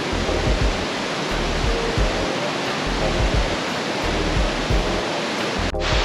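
Steady rush of a rocky mountain stream's rapids, mixed with background music: a low regular beat and light melody notes. The sound drops out for an instant near the end.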